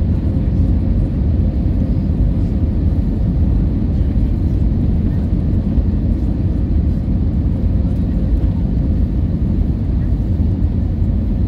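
Steady low rumble of a jet airliner heard from inside the cabin: engine and airflow noise with a faint steady hum, unchanging throughout.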